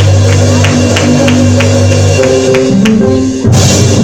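Live church band music: held low bass chords changing pitch every second or so over a steady percussion beat, with a loud crash about three and a half seconds in.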